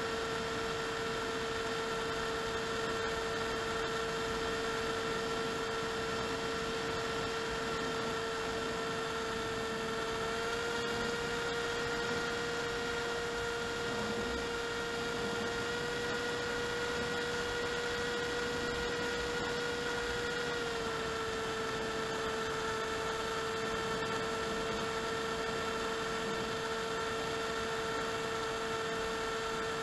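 Electric motor and propeller of an AXN Clouds Fly foam plane whining steadily in flight, picked up by the onboard camera's microphone over a steady hiss. The pitch steps up slightly about ten seconds in, again about fifteen seconds in, and drops back about twenty-one seconds in, following throttle changes.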